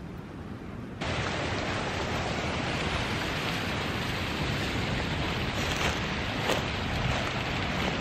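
Steady rushing of wind on the microphone and ocean surf, starting abruptly about a second in.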